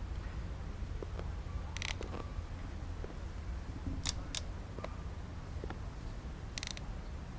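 Clicks from a plastic toy camera being operated: a short snap about two seconds in, two quick sharp clicks about four seconds in, and another snap near the end, over a steady low rumble.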